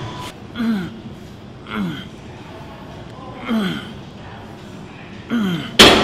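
A man exhales with a short, falling grunt of effort on each pull of a seated cable row, four times about a second and a half apart. A sharp, loud knock comes near the end.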